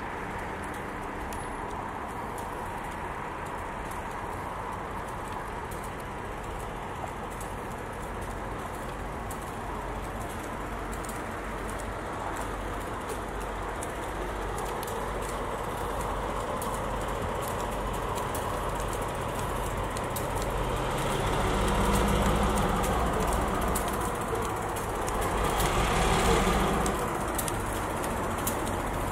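Diesel locomotives of a freight train approaching, their engine rumble growing steadily louder and swelling twice near the end.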